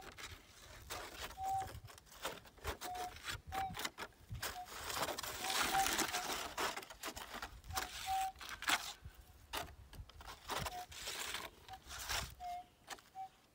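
Gold metal detector giving a dozen or so short beeps at the same mid pitch, irregularly spaced, as its coil passes over targets. Clicks, knocks and a stretch of scraping from the coil and ground are mixed in.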